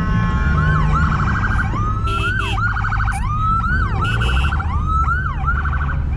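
Electronic vehicle siren cycling between rising-and-falling wails and short rapid warbling yelps, over the low rumble of car engines.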